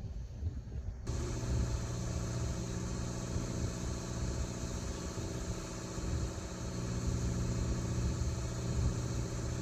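Fishing boat engine idling with a steady, even hum that starts at a cut about a second in. Before that, wind on the microphone.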